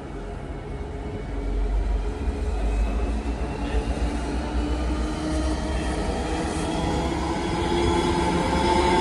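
Diesel locomotive approaching, its engine's low rumble and hum growing steadily louder as it nears.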